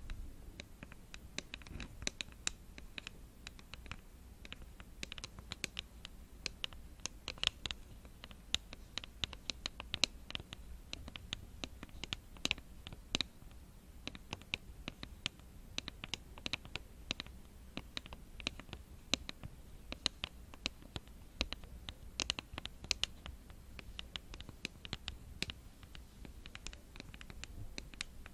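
Long acrylic fingernails tapping and scratching fast on a small light-up cylinder close to a microphone: a dense, irregular patter of sharp clicks with light scratching.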